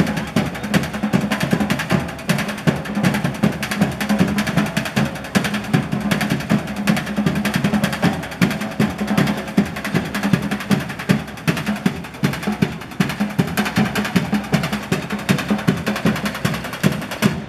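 Live stomp-style drum ensemble playing a fast, dense rhythm of rapid, continuous strikes that keeps up without a break.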